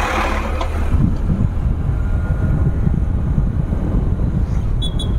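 Motorcycle riding along with its engine rumbling low under wind buffeting the microphone. A short high beep sounds near the end.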